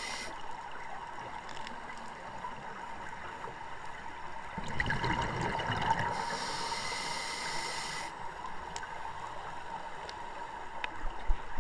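Scuba diver breathing through a regulator, heard underwater. A hissing inhale ends just after the start, then a bubbling exhale comes about five seconds in, followed by another hissing inhale lasting about two seconds.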